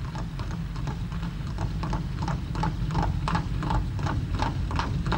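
Horse hooves clip-clopping in an even rhythm, about three to four hoof beats a second, as a one-horse carriage moves along, over a steady low rumble; the hoof beats slowly grow louder.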